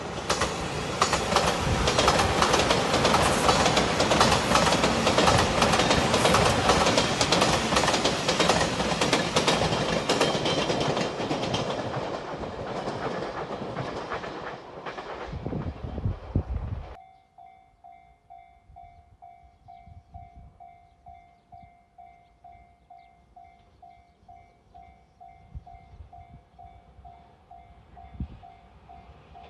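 Anpanman-livery JR express train passing close by: a loud rush with wheels clacking on the rails, dying away over several seconds. After an abrupt cut, a level-crossing bell rings steadily, about two dings a second.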